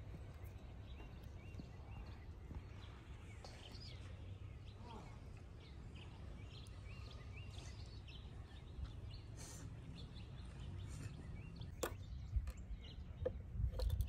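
Quiet outdoor ambience: a low steady rumble with small birds chirping in short repeated notes, and a few sharp clicks near the end.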